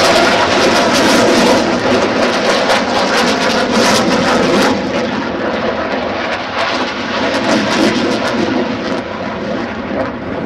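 Loud aircraft engine noise from a plane passing overhead, a dense crackling rush that slowly fades over the second half.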